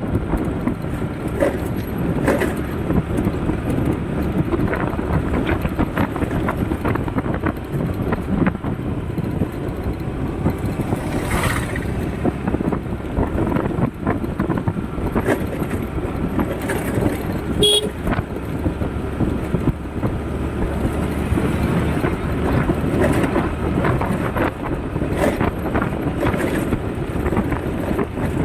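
Steady low rumble of a vehicle on the move, with one brief horn toot about two-thirds of the way through.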